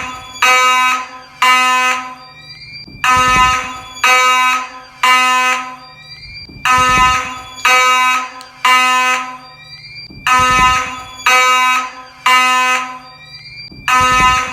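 Fire alarm horn/strobe sounding in the temporal code-3 evacuation pattern: three short loud horn blasts, a pause, then three more, repeating about every three and a half seconds. Faint rising whines can be heard between the blasts.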